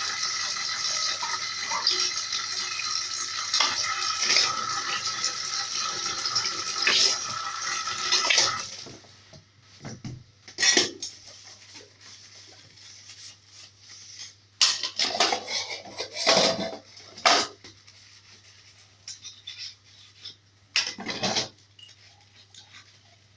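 A kitchen tap runs steadily while dishes are washed, then shuts off about eight seconds in. Scattered clinks and clatters of dishes and pans being handled follow.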